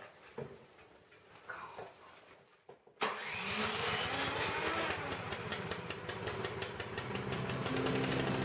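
A few faint, soft sounds, then, about three seconds in, a sudden switch to a Craftsman 28-inch snow blower's small engine running steadily with a fast, even firing beat. This is its first run after the auger assembly was rebuilt.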